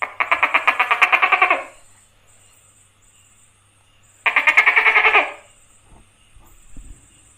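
Tokay gecko calling: two calls, each a rapid train of pulses, the first about a second and a half long and the second about a second long, coming some three seconds later.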